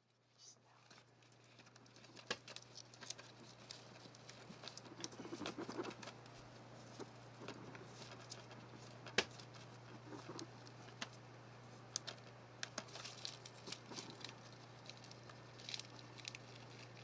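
African pygmy hedgehog's claws scrabbling and tapping on plastic game cases as it climbs: an irregular scatter of sharp clicks and scratchy rustles over a steady low hum.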